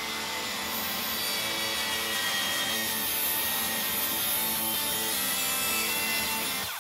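Makita 36-volt cordless track saw cutting through a thick hardwood board along its guide rail: a steady blade-in-wood cutting noise that stops abruptly near the end.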